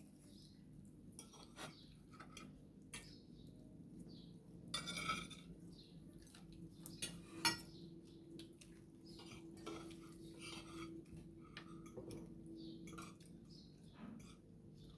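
Cutlery clinking and scraping on plates and bowls during a meal: scattered light clicks, with one sharper clink about halfway through.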